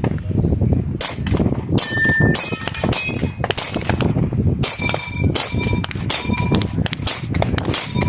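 A rapid string of pistol shots, about two a second, at falling steel targets. Many hits are followed by the high ring of struck steel plates.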